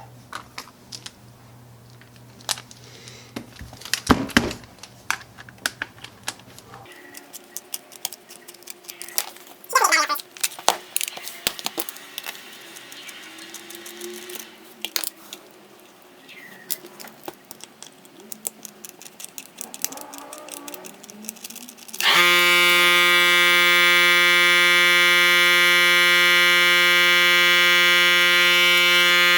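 Scattered clicks, taps and small rattles of a cordless hammer drill being taken apart by hand. About two-thirds of the way in, a loud, steady buzzing tone with many overtones starts and holds unchanged for several seconds.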